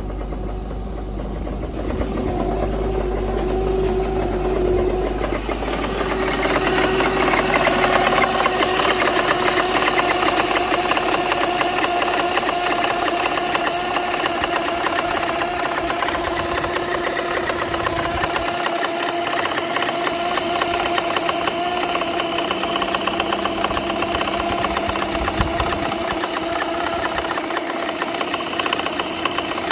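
BMW N54 twin-turbo straight-six engine running steadily with a rapid knocking, ticking noise. It is a noise the owner cannot explain, left over after a new cylinder 1 fuel injector cured a misfire. It grows louder about two seconds in and again around six seconds.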